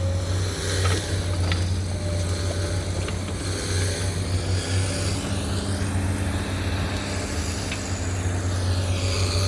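A motor vehicle running with a steady low drone.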